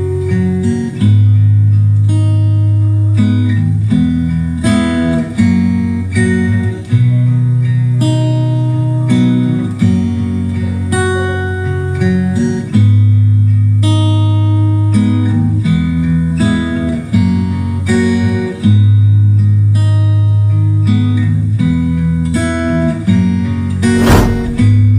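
Instrumental acoustic-guitar music with a heavy bass line, played loud through a karaoke sound system driven by a Joson Jupiter amplifier during a sound test. A brief thump cuts through near the end.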